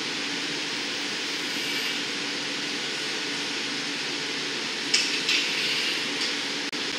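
Steady roar of a glass studio's glory-hole burners and furnace with the exhaust fans running, with a few short metal clinks about five seconds in.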